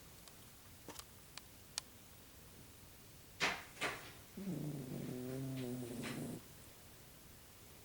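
Sleeping dog snoring: two sharp, quick breaths a little before the middle, then one long droning snore of about two seconds.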